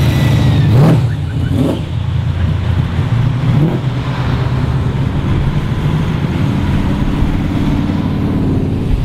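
Cars' engines rumbling as they cruise past one after another, with a few short revs that rise in pitch in the first few seconds.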